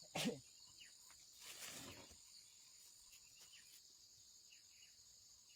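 Faint, steady insect chirring. A short noisy sound comes near the start, and a soft swish about a second and a half in.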